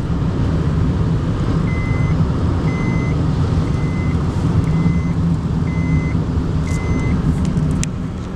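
Steady road and engine noise inside a moving car, with a series of six short electronic beeps, about one a second, in the middle.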